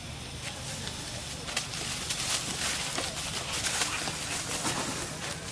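Dry leaf litter rustling and crunching in quick, irregular crackles, starting about a second and a half in.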